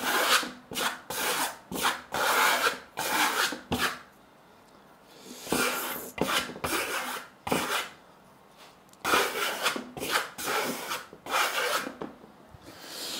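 Plastering trowel scraping a thin coat of decorative plaster onto a board: a run of short rasping strokes, about two a second, pressing the plaster in with round movements. The strokes stop briefly twice, about four and eight seconds in.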